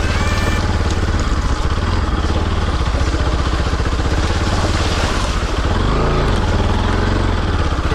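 Motorcycle engine running steadily, its pitch dipping and rising again briefly about six seconds in.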